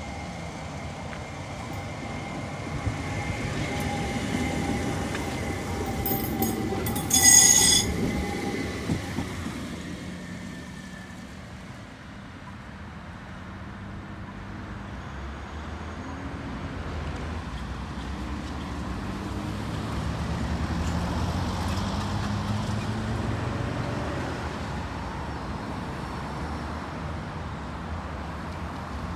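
Canberra light rail tram (CAF Urbos 3) running past with a steady electric whine. About seven seconds in comes a brief, shrill high-pitched sound, the loudest moment. After that a lower rumble of a tram and road traffic swells and fades.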